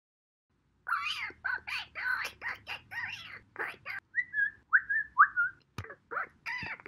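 A quick run of high, bird-like chirps, then three short whistle notes a little past the middle, then more chirps.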